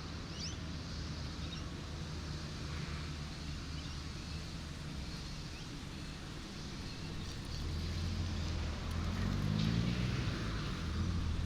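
City street traffic: a steady low rumble of vehicle engines. It grows louder about two-thirds of the way in as a vehicle comes close and its engine revs up. A few faint bird chirps sound near the start.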